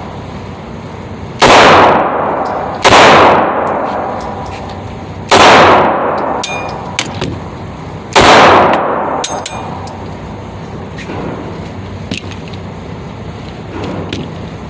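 Four shots from a compact 9mm pistol, fired at an uneven pace with one to three seconds between them. Each shot rings out in a long echoing decay, and a few light metallic clicks fall between them.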